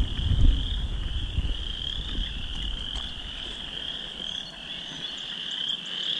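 A chorus of many frogs calling at once, blending into a steady, high-pitched trill. A low rumble sits under it in the first half second.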